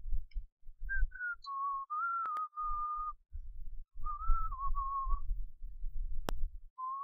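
A person whistling a tune in short phrases, one clear note stepping up and down in pitch. Low knocks and rubbing from handling small parts run underneath, with one sharp click about six seconds in.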